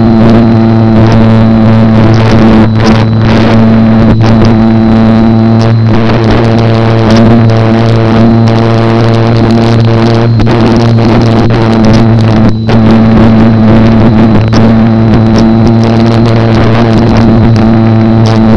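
Electric motor and propeller of a Slow Stick RC park-flyer, heard from a camera riding on the plane: a loud, steady droning buzz that holds one pitch, with a faint high whine above it and a few brief crackles.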